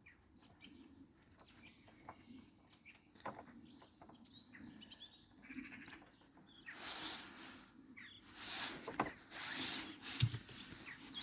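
Faint birdsong chirping in the background. Scattered light clicks and three short bursts of scraping handling noise come from work on the car door, about seven, eight and a half and nine and a half seconds in.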